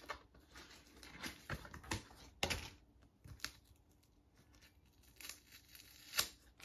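Quiet tearing and crinkling as a sealed cardboard card holder and its paper wrapping are pulled open by hand, in scattered short rips and crackles. The loudest come about two and a half seconds in and again near the end.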